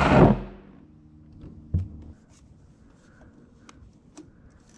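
Rubbing and handling noise as a camera is moved and set down, loud for the first moment, then faint scattered clicks and a single knock a little under two seconds in.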